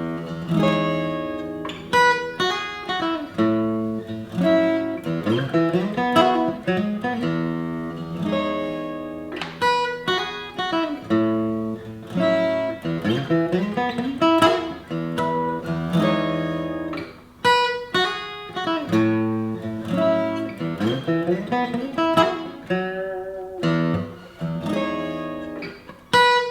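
Background music: plucked acoustic guitar playing a melody with strummed chords.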